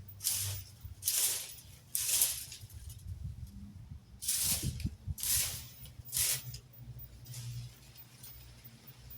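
Rake scraping through dry leaves in repeated strokes, six of them about a second apart in two runs of three.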